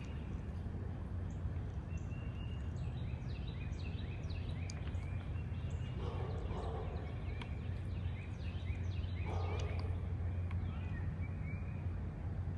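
Small birds chirping over and over, with a steady low hum underneath. Two brief lower-pitched calls come about six and nine seconds in.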